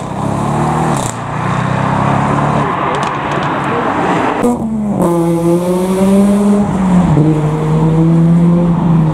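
Audi RS6 Avant's twin-turbo V8 accelerating away, its note rising twice with a gear change between, then fading. About five seconds in, a BMW 3 Series coupe's engine takes over, running at low revs with a steady drone that drifts slightly lower as it pulls out.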